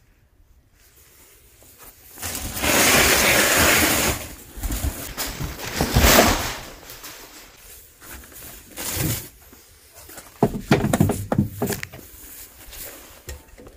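Clear plastic packaging rustling and crinkling in a cardboard box, in bursts, the longest a couple of seconds in. Later come scattered knocks and clatter of things being handled.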